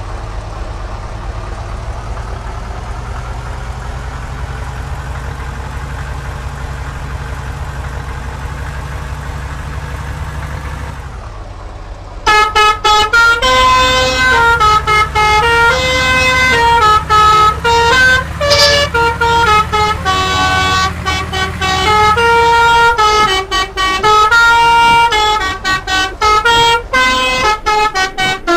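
A bus's Basuri telolet musical horn playing a loud, quick run of changing notes as a melody, starting about twelve seconds in and going on to the end. Before that the bus engine runs steadily with a slowly rising pitch.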